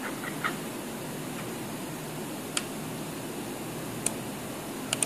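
A few sharp computer-mouse clicks over a steady room hiss: one about two and a half seconds in, another about four seconds in, and a quick double click near the end, with faint short squeaks at the very start.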